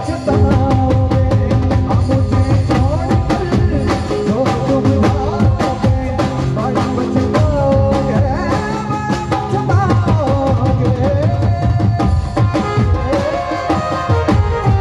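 Live band playing a Hindi song through a PA: dhol and drums keeping a fast, dense beat under a keyboard melody, with a male voice singing.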